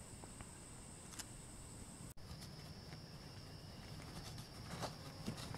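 Faint steady high-pitched trilling of evening insects such as crickets in the woods, with a few small ticks and rustles. About two seconds in it breaks off abruptly and resumes at a lower steady pitch.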